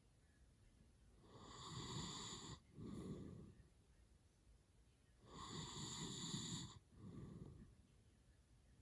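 A sleeping man snoring heavily: two snoring breaths about four seconds apart. Each is a longer snore followed by a shorter one after a brief break.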